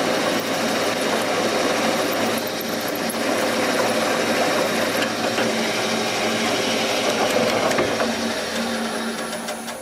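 Seat and guide machine spindle running a tap drill through the remains of a broken intake manifold bolt in a cast-iron Ford 302 cylinder head: a steady motor hum with the grinding of the drill cutting, winding down near the end as the bolt comes free.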